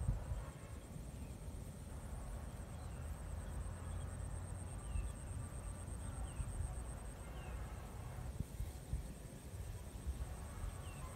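Outdoor field ambience: low wind rumble on the microphone under a steady high-pitched insect trill that fades after about seven seconds, with a few faint short chirps scattered through.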